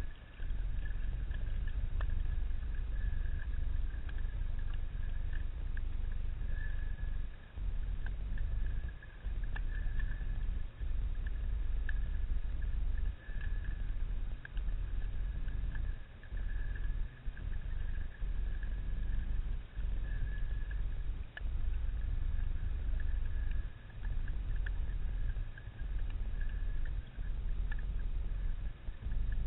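Underwater sound in shallow water: a low rumble of water movement that dips out briefly every couple of seconds, over a steady thin high whine and a few faint clicks.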